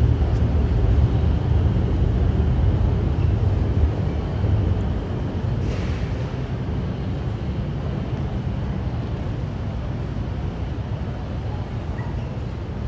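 Low, steady rumble of passing city traffic, loudest over the first few seconds and then slowly fading.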